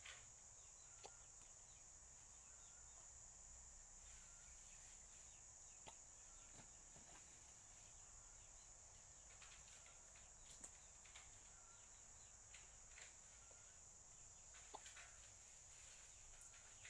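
Near silence with a faint, steady, high-pitched insect drone, and scattered faint short chirps and soft clicks over it.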